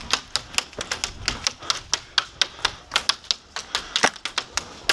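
Airsoft BBs striking a plywood barricade: a fast, irregular run of sharp ticks, about four a second.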